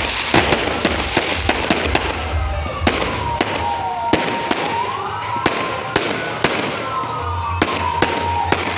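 Fireworks display: aerial shells going off in a rapid, irregular series of sharp bangs over continuous crackling.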